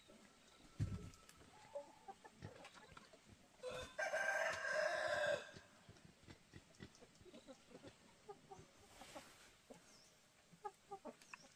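A rooster crows once, about four seconds in, a crow lasting about a second and a half, with faint chicken clucking and small knocks around it.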